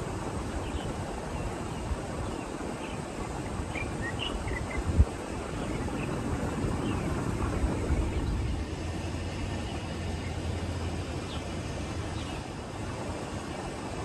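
Rural outdoor ambience beside a rice paddy: a steady low rumble with faint, scattered bird chirps. A single low thump comes about five seconds in, and a low steady hum sounds for a few seconds after the middle.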